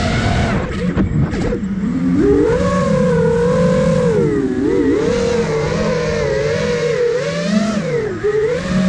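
Brushless motors and propellers of an iFlight Nazgul Evoque F5 five-inch FPV quadcopter, heard from its onboard camera: a buzzing whine whose pitch rises and falls with the throttle. About a second in the throttle drops and the whine sinks, then it spools back up by about two seconds; near the end it dips briefly and climbs again.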